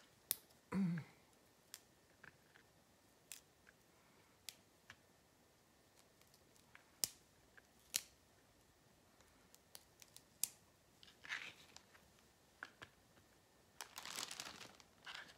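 Crisp broccoli stems snapping as florets are pulled apart by hand, a sharp snap every second or two. Near the end, a plastic zipper bag crinkles as the pieces go in.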